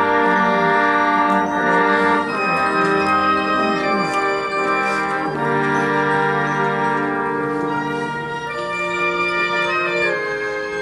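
Marching band's brass and saxophones playing long held chords that change every second or two.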